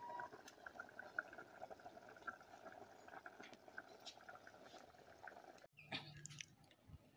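Pot of cowpeas at a rolling boil, faint bubbling and popping. A short clatter comes about six seconds in.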